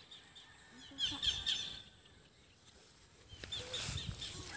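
Birds chirping in short, quickly repeated high calls about a second in, then a near-silent pause before faint chirps return near the end.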